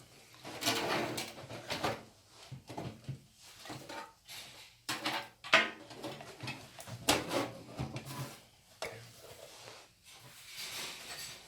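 Irregular clicks, knocks and rustling of computer parts and cables being handled and fitted into a PC case.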